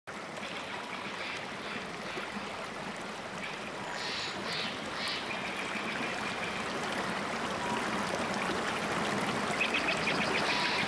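Creek water rushing over rocks in a steady wash, growing slightly louder, with a few short high chirps and trills over it.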